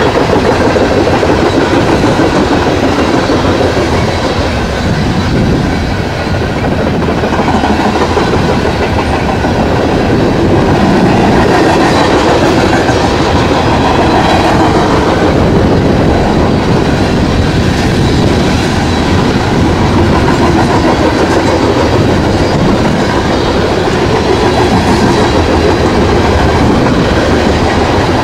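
Freight train of coal hopper cars rolling past, loud and steady: the rumble of steel wheels on rail with a dense clatter of wheels over rail joints.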